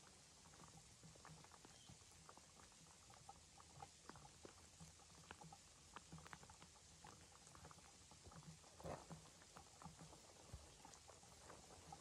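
Faint, irregular patter of light rain.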